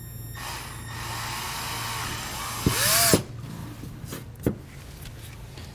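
Cordless drill boring through a hard plastic trim panel with a small twist bit, its motor pitch rising and then falling as it winds down about three seconds in. A couple of light clicks follow as the plastic shavings are brushed away.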